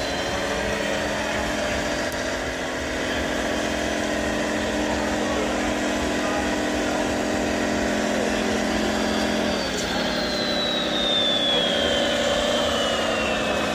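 Radio-controlled scale model Scania truck running, its sound module giving a steady diesel-engine note that steps down in pitch about ten seconds in. A high whine falls in pitch near the end.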